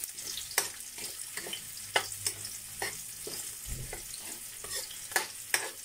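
Chopped garlic and onion sizzling in hot oil in a wok, with a metal spatula scraping and clinking against the pan as they are stirred, in irregular sharp clicks over a steady hiss.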